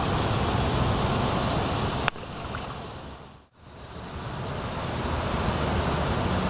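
Steady wind and water noise with a low rumble on the microphone. About two seconds in there is a sharp click, then the sound drops away, fades to near silence and fades back in, as at an edit.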